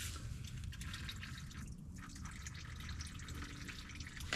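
Engine oil dripping irregularly from the drain hole of a 2017 Camaro V6 into a drain pan: the last drips once the oil has drained out.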